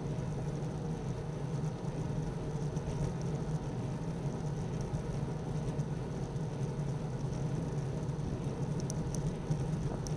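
Steady rush of wind and tyre-on-road noise from a bicycle riding along, heard through a bike-mounted camera's microphone, with a faint steady high whine and a few brief high ticks near the end.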